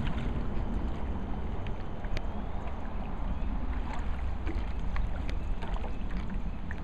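Wind rumbling steadily on the microphone over open water, with scattered small splashes and lapping of water.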